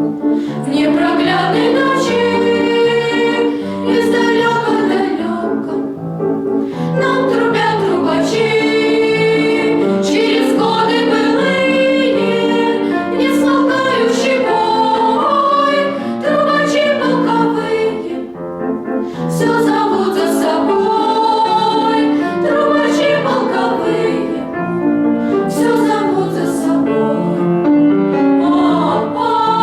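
Vocal ensemble singing a song together in chorus, the voices holding sustained notes.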